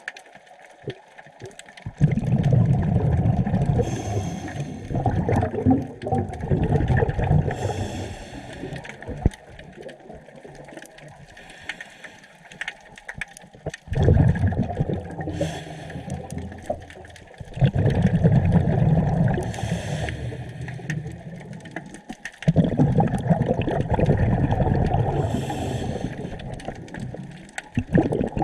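Scuba diver breathing through a regulator underwater: long rumbling bursts of exhaled bubbles every several seconds, with short high hisses of inhalation between them.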